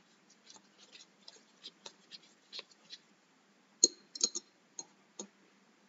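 Soft scratching of a paintbrush in short strokes across paper, then a few sharp plastic clicks of a small paint pot's lid from about four seconds in, the first click the loudest.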